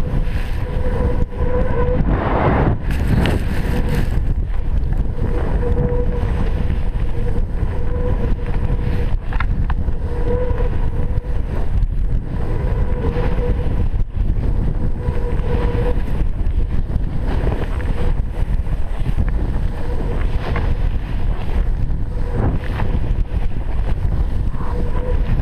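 Steady wind noise buffeting a GoPro's microphone while a snowboarder rides fast through powder, mixed with the hiss of the board running through the snow. A faint whistling tone comes and goes several times.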